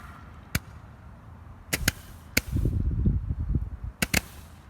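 Consumer fireworks going off: a run of sharp bangs, several in quick pairs, with a short hiss after some of them and a low rumble for about a second in the middle.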